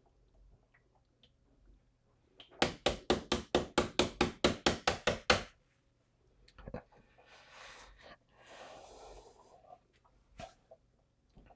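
A quick run of about seventeen knocks, some six a second, lasting about three seconds: tapping on the electrolyte container seated on a new maintenance-free battery to help the acid drain into the cells. A few seconds of softer noise follow, with a single click near the end.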